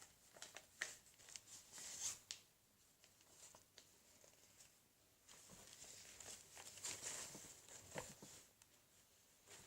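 Faint rustling and crinkling of a newspaper being handled, in two spells with a few light clicks.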